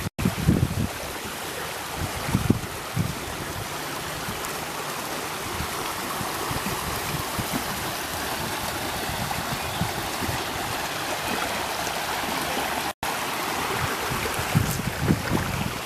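Steady flowing floodwater, heard as an even rushing hiss, with wind buffeting the microphone near the start and again near the end.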